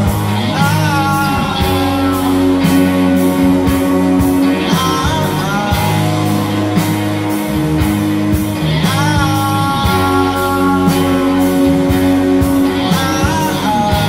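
Rock band playing live, led by electric guitar over a steady beat. A phrase repeats about every four seconds, each turn marked by a gliding note.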